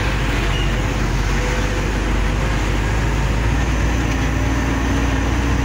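Diesel engine of a heavy dump truck running steadily under way, heard from inside the cab as a constant low rumble with road noise; a steady hum joins a little past halfway.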